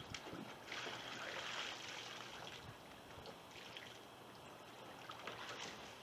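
Water pouring and trickling out of a tipped-up kayak into the pool as the boat is drained. The flow is strongest for the first few seconds, then eases to a faint trickle, with a couple of light knocks.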